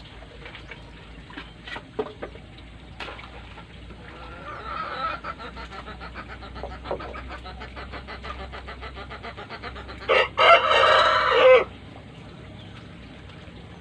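A rooster crows once, loudly, about ten seconds in, the crow lasting about a second and a half. A fainter fowl call comes a few seconds earlier.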